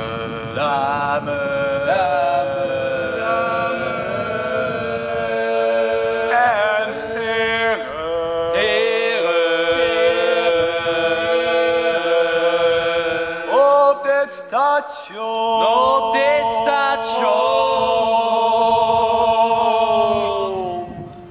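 A small group of young male voices singing together in long, drawn-out chant-like notes, with a few sliding changes of pitch; the final held note bends downward and fades near the end.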